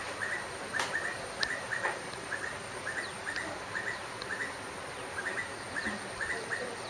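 Short high chirps repeating irregularly, a few a second, typical of small birds chirping, with a faint click about a second in.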